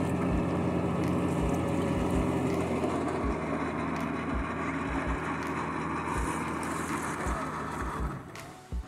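Diesel farm tractor engine running steadily under heavy load as it tows a fishing boat of about 40 tonnes on a trailer across soft sand. The sound drops away abruptly about eight seconds in.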